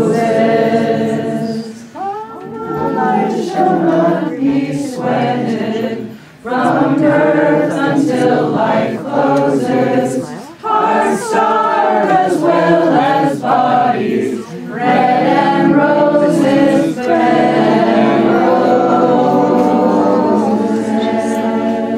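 Group of voices singing a song unaccompanied, in phrases with short breaks between them.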